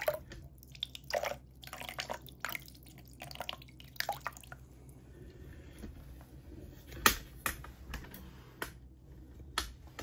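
Rusty, sediment-laden water from a water heater being drained, trickling slowly out of a garden hose into a floor drain in irregular drips and splashes. The loudest is a sharp splat about seven seconds in.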